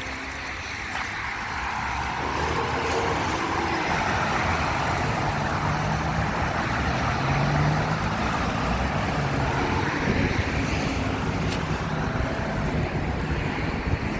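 Strong wind rushing, swelling about two seconds in and staying loud, mixed with the hum of passing street traffic.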